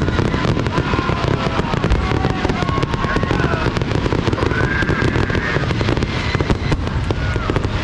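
Fireworks going off in quick succession: dense crackling pops over a continuous low rumble.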